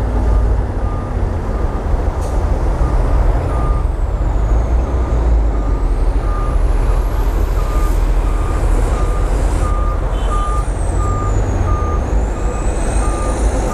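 Diesel dump trucks and earthmoving machinery running with a steady low rumble, while a reversing alarm beeps at an even pace, about three beeps every two seconds.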